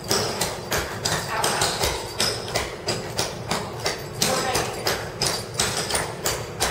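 Clogging taps striking a wooden floor in a steady dance rhythm, about three to four sharp taps a second.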